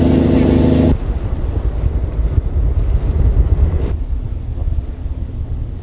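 Fishing boat's engine running steadily under way for about a second, then it cuts off suddenly and wind buffets the microphone with a rough low rumble and hiss. About four seconds in the hiss drops away, leaving a quieter low rumble.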